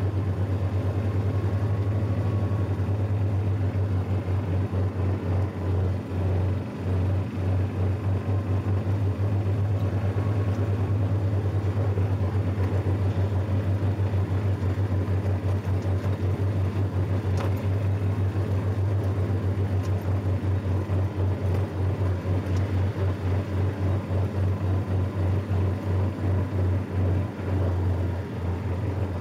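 John Deere lawn tractor's engine running steadily as the tractor drives along, a constant low drone with a quick flutter.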